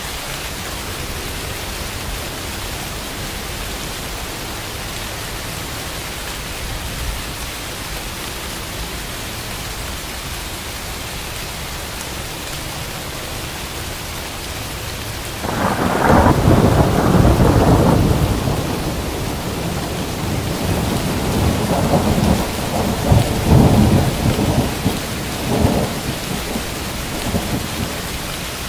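Steady rain hiss, then about halfway through a sudden loud thunderclap that rolls on for a couple of seconds, followed by several more rumbles and cracks that die away near the end.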